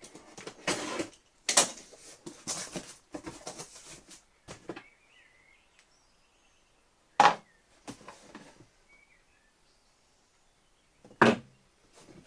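Parcel being unpacked: cardboard and packaging rustling and tearing in bursts for the first few seconds, then two sharp knocks, about seven and eleven seconds in.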